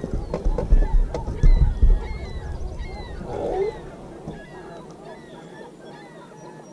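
Dull low thumps and knocks in the first two seconds as a fish is landed and handled on a boat deck, then a flock of birds calling: many short, falling, honk-like calls, repeating through the rest of the time.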